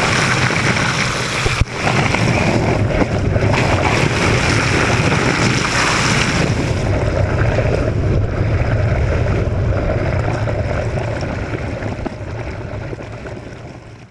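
Water rushing and churning around a camera held just below the sea surface: a steady noise with no voice or music. It turns duller after about six seconds and fades out near the end.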